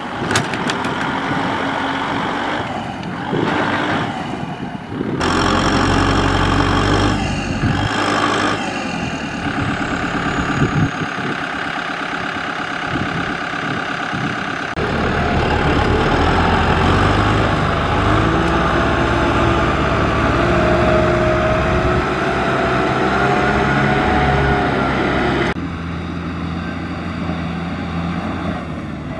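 Kubota tractor's diesel engine running, its pitch climbing slowly in the second half, with the sound changing abruptly about five, fifteen and twenty-six seconds in.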